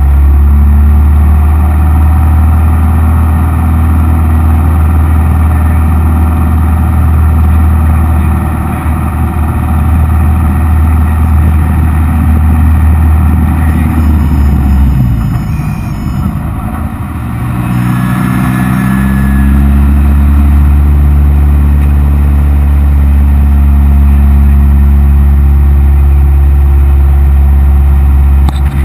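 Cessna 172M's four-cylinder Lycoming engine and propeller drone steadily and loudly. About halfway through, the drone fades away for several seconds, leaving a rushing air noise. It then comes back with rising pitch as power is brought back in.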